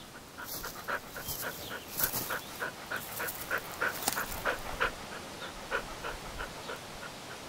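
A dog panting in quick, even breaths, about three a second, fading out near the end.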